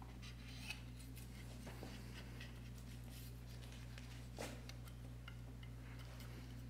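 Faint scratching and light ticks of a razor blade scraping old gasket material off the sealing edge of a Ford Focus automatic transmission case, over a steady low hum.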